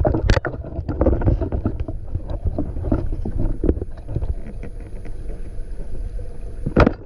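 Muffled underwater sound recorded by a diver's camera: a steady low rumble with many small clicks and knocks, and a faint steady high whine. A sharper, louder knock comes near the end.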